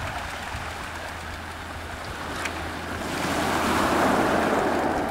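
Small waves washing onto a pebble beach, one wave swelling louder about three seconds in and easing off near the end.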